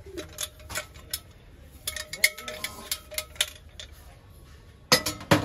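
Brass kitchenware clinking and knocking together as pieces are handled and set down. There are many sharp metallic clinks, some left briefly ringing, and the two loudest come near the end.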